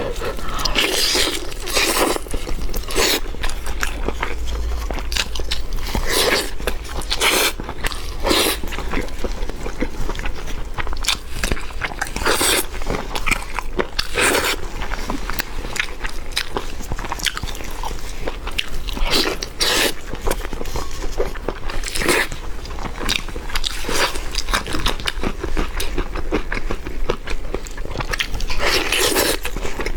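Crisp food crunching at irregular intervals, a steady run of short crunches with a longer, louder one near the end.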